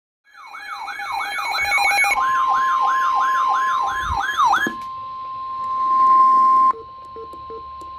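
Emergency alert sounds: a wailing, siren-like tone sweeps up and down about two and a half times a second for the first half. A steady single-pitch warning tone, the kind used by NOAA Weather Radio, joins it partway through. After the wail stops, the steady tone runs on alone, swelling, then drops abruptly to a lower level about two-thirds of the way through.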